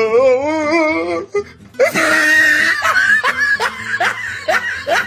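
A wobbling, warbling pitched tone, then a loud burst and repeated laughter in short rising bursts, about three a second.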